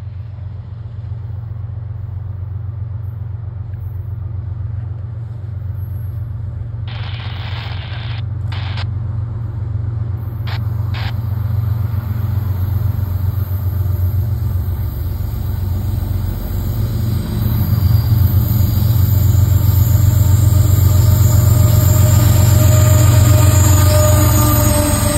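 Diesel locomotive approaching with a freight train, its deep engine rumble growing steadily louder. A few short bursts of noise come between about seven and eleven seconds in, and from about ten seconds a high whine of wheels on rail joins in.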